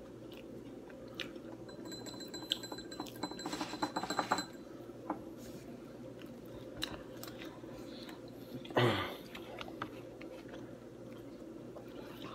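Close-up chewing of pizza with scattered wet mouth clicks, over a steady low hum. About nine seconds in there is one short, louder sound that slides down in pitch.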